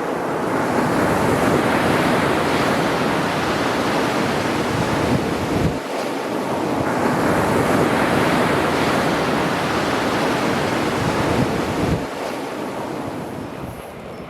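Sea waves breaking and washing onto the shore in two surges, the second building about halfway through and easing off near the end, with wind buffeting the microphone.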